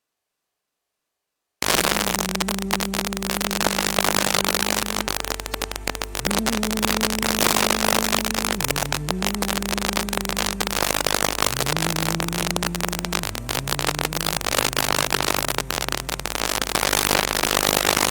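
Dead silence for about a second and a half, then loud crackling static and hiss with a steady low hum, under which slow held notes step from pitch to pitch like a slow worship melody.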